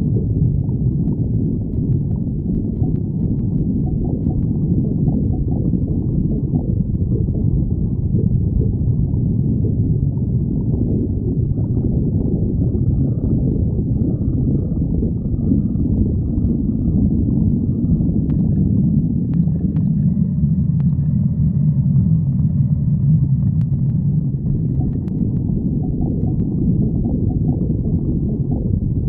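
Stomach growling: continuous low rumbling and gurgling with no pause, and a few faint higher squeaky tones through the middle stretch.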